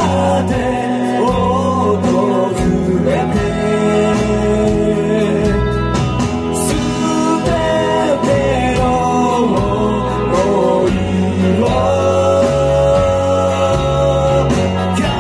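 Live rock band: a male vocalist singing over electric guitar, bass and a drum kit keeping a steady beat.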